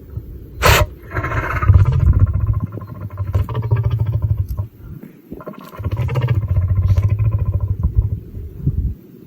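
A lion makes a sharp, sudden blast of breath through its nose, then a low, pulsing growl-like rumble in two long stretches, as if it is trying to clear its nose.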